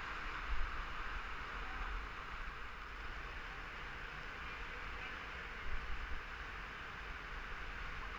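Steady rush of flowing river current around a kayak, heard through a camera on the kayak's bow, with two brief low thumps, one about half a second in and one around six seconds in.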